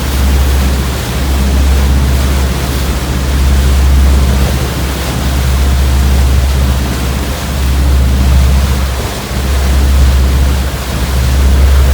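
Rushing wind and sea-water noise aboard a moving boat, loud and steady, with a heavy low rumble that swells and drops every second or two.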